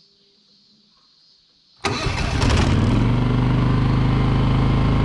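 Denyo GAW-155ES engine welder-generator electric-started after about half a year unused: about two seconds in it cranks briefly, catches at once and settles into a steady run, its battery still holding enough charge.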